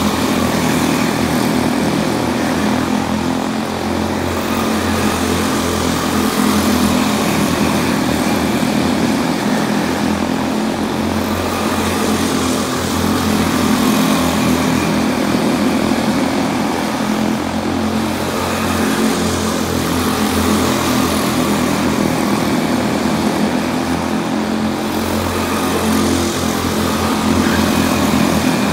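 Several quarter midget race cars' small single-cylinder engines running at racing speed on the track together, a steady buzzing drone whose pitch wavers slightly as the cars go around.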